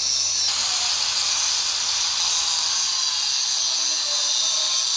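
Angle grinder grinding a steel pipe, giving a steady high-pitched grinding whine that grows louder about half a second in.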